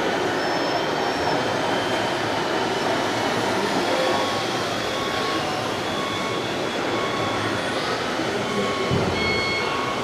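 Steady din of a busy hall with faint high whines that come and go, from radio-controlled model construction machinery at work.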